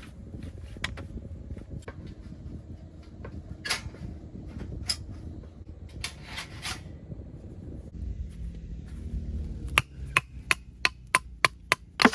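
Low wind rumble on the microphone with scattered clicks, then, near the end, a quick run of about eight sharp taps, roughly three a second.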